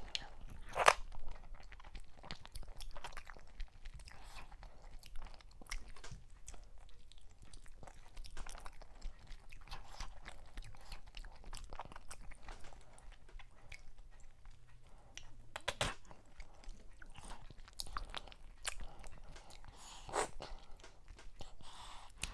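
Close-miked chewing and wet mouth sounds of someone eating fufu with okra soup and mackerel: soft, repeated chews and mouth clicks, with a louder click about a second in and another near the end.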